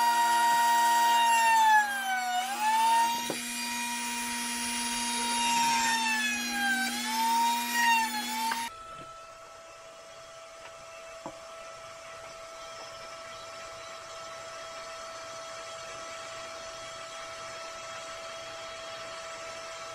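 Flex-shaft rotary tool (Dremel type) with a burr bit running at a steady high whine and grinding into wood. Its pitch sags twice as the burr bites and the motor is loaded. About nine seconds in it cuts off abruptly, leaving only a fainter steady hum.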